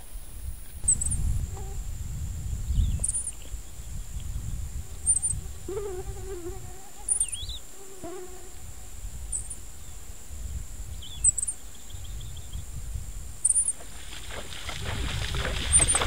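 Open-savanna ambience: a steady high insect drone with a short, very high chirp repeating about once a second, a few scattered bird notes and a low wind rumble. Near the end the sound of splashing water builds up.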